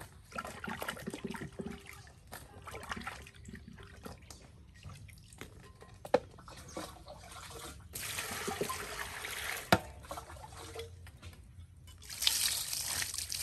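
Water poured from a plastic dipper, splashing and trickling onto vegetables and hands as they are rinsed. It comes in two louder spells, about eight seconds in and again near the end, between quieter wet handling sounds, with two sharp knocks.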